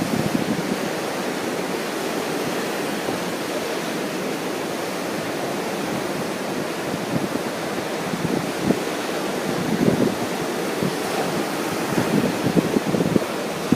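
Ocean surf washing onto the beach in a steady rush, with wind buffeting the microphone in irregular gusts, more often in the second half.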